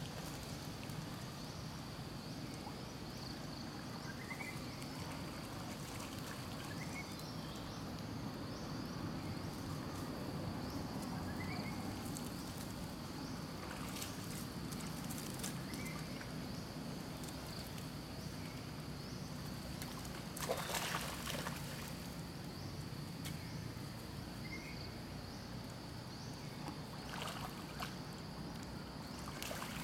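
Outdoor ambience: a steady high-pitched insect drone over a low even rumble, with a few short chirps and one brief louder rustling noise about two-thirds of the way through.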